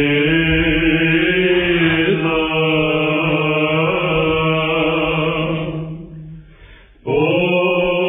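Byzantine chant in the plagal fourth mode sung by male monastic voices: a slow, melismatic melody over a steady held low drone (the ison), with the dull, narrow sound of an old radio recording. The singing fades out about six seconds in and comes back in about a second later.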